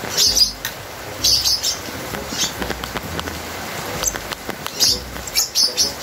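Pet lovebirds chirping: a string of short, high chirps at uneven intervals, several in quick succession near the end.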